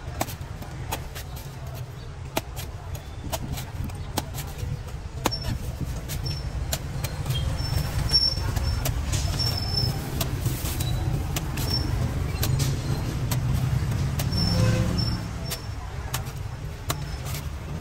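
Cleaver chopping the husk off young green coconuts: a run of sharp, irregular chops, about one or two a second. A steady low traffic rumble runs underneath.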